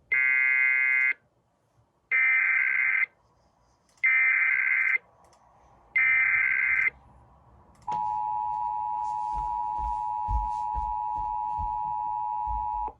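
Emergency Alert System tones. First come four roughly one-second bursts of the screeching digital SAME header data, a second apart. Then the steady two-tone EAS attention signal sounds for about five seconds. Together they mark the start of an EAS alert, here a statewide test.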